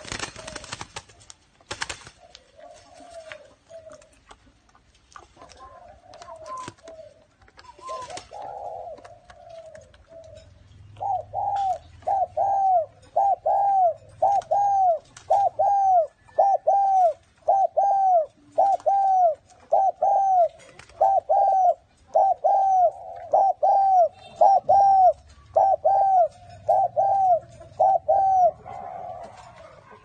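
Spotted dove cooing: soft scattered coos at first, then from about ten seconds in a long, loud run of evenly spaced coos repeated over and over. A few sharp knocks sound near the start.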